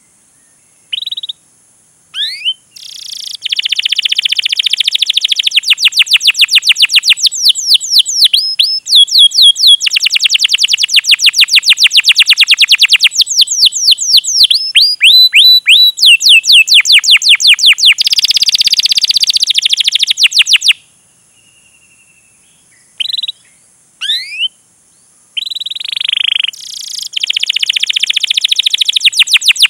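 Domestic canary singing: long runs of rapid, repeated sharp sweeping chirps. About two-thirds of the way in, the song breaks off for a few seconds with only a few short calls, then starts again.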